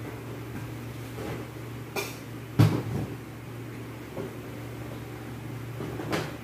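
Several sharp knocks over a steady low hum: a small one about two seconds in, the loudest just after it with a smaller echo of it, and another near the end.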